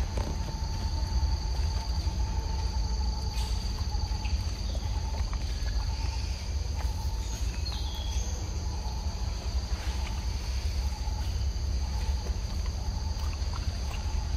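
Outdoor forest ambience: insects singing in steady, unbroken high-pitched tones over a continuous low rumble, with a few faint clicks.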